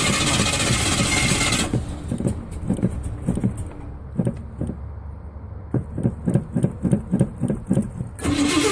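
Car engine running, then cutting out about a second and a half in, followed by about six seconds of the starter cranking it over in quick rhythmic pulses. It catches and runs again near the end: a hard start.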